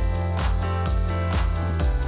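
Background music with a steady beat, about two beats a second, over sustained notes.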